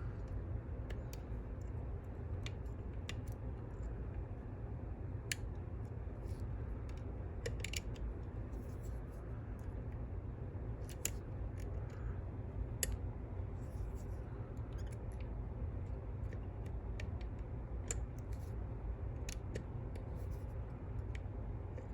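Irregular small metallic clicks and taps of a probe pick and tensioner working the pins of a Fontaine French pump lock.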